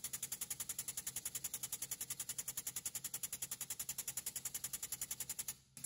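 Air-driven pump of a Brownell BL8AIR air-hydraulic boat jack running, a fast even clatter with a hiss of about thirteen pulses a second as the jack is pumped up under the boat. It stops briefly near the end and starts again.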